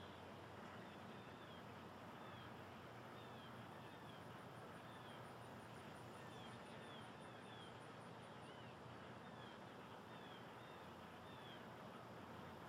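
Near silence with a faint steady hiss, over which short high chirps come every second or so. A fainter, rapid high ticking is heard for a few seconds in the middle.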